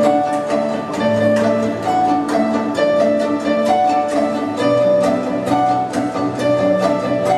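Instrumental string music with a steady pulse of short plucked notes under a repeating melody.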